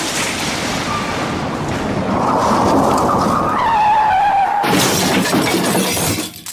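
Car-crash sound effect: tyres screeching, metal crunching and glass shattering in one continuous pile-up, with a fresh crash about two-thirds of the way in. It then breaks up into falling debris and tinkling glass and dies away near the end.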